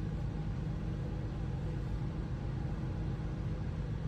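Steady low mechanical hum, as of a motor running, with no distinct clicks or knocks.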